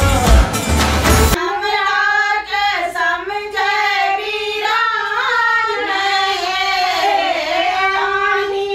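A pop song with a heavy beat cuts off abruptly about a second and a half in. A woman's voice then sings a high, bending melody with no accompaniment.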